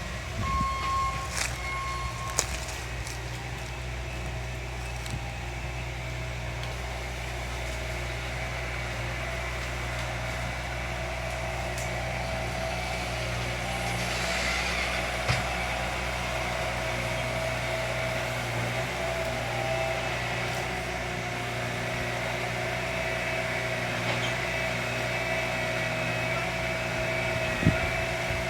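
An engine running steadily at a constant speed, with a few sharp clicks.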